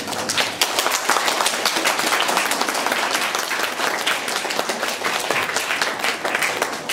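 Audience applauding: dense clapping that builds slightly about a second in and carries on steadily.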